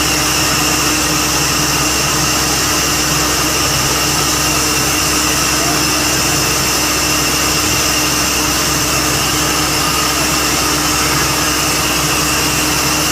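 Borewell drilling rig running steadily: a loud, unbroken machine noise with a constant hum under a strong hiss.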